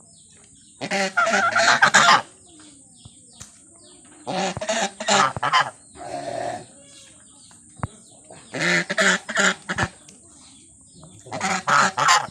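Geese honking in five loud bouts of rapid calls, every two to three seconds, over a steady high-pitched hiss.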